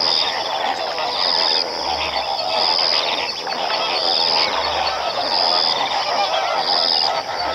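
A flock of flamingos calling, a dense, continuous chatter of many overlapping honking calls. A short high note repeats about once every second and a bit.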